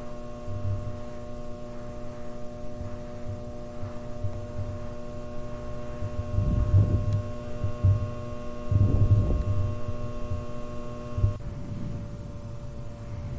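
Steady electrical hum in several stacked tones from fluorescent ceiling lights, under irregular low thumps. Some of the hum's tones cut off about eleven seconds in.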